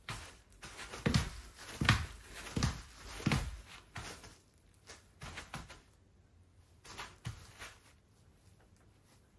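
Several dull thumps in a small room, about three-quarters of a second apart, then a few fainter scattered knocks.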